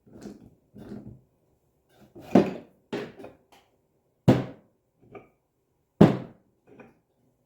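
Three loud, sharp knocks on a three-jaw lathe chuck's metal parts, less than two seconds apart, with lighter knocks in between, after a second of soft scraping as parts are handled during disassembly.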